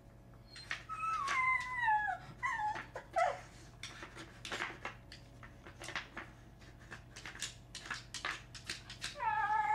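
A dog whining in high, falling whimpers, a run of them in the first few seconds and again near the end. Between them, short wooden clicks and clacks as the pieces of a Nina Ottosson Dog Turbo wooden puzzle are nosed and pawed.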